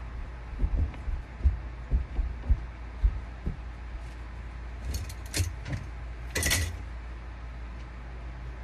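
Footsteps thudding across a floor, then a few light clicks and a brief metallic jingle about six seconds in.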